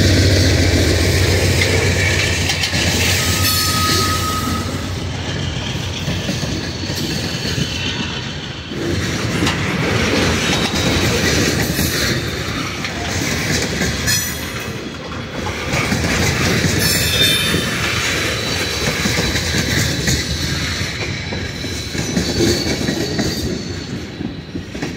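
Freight train tank cars rolling past: a steady rumble of steel wheels with rail-joint clickety-clack and brief wheel squeals, one plain squeal about four seconds in. A locomotive's low engine drone fades out within the first second, and the rumble thins near the end as the last car passes.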